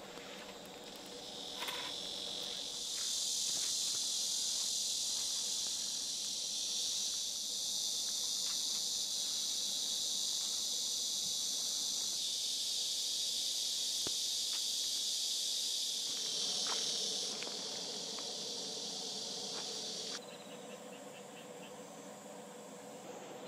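Crickets and other insects chirring in a steady high-pitched chorus, stepping louder and quieter abruptly a few times, with a few light clicks.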